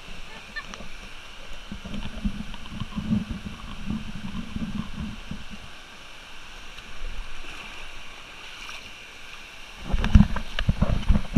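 Steady rush of small waterfalls into a pool under an uneven low rumble of wind and handling noise on an action camera's microphone. A cluster of loud low thumps about ten seconds in.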